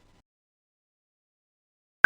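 Near silence: dead air.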